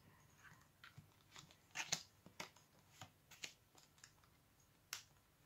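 A deck of tarot cards being shuffled by hand: faint, irregular card snaps and slaps, the loudest pair about two seconds in.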